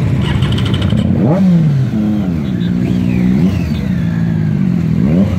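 Triumph Daytona 675 sport bikes' three-cylinder engines being revved as the bikes ride slowly past. The engine note rises sharply about a second in, drops and holds at a steady pitch, and rises sharply again near the end.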